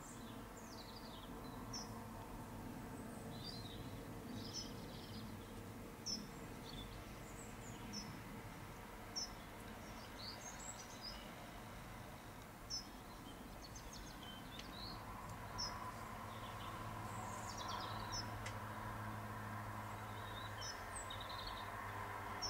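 Small birds chirping and calling again and again, a few sharp single chirps standing out. Beneath them a steady low hum grows slightly louder about two-thirds of the way through.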